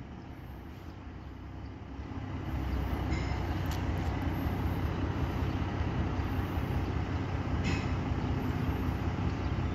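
Wheel loader's diesel engine running, getting louder about two seconds in and then holding steady, with a few short knocks.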